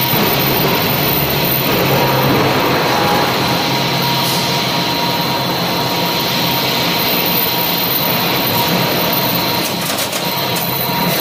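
NC high-speed circular saw with an HSS blade cutting through a bundle of tubes: a loud, steady machining noise with a constant high whine and a low hum. A few light clicks come near the end.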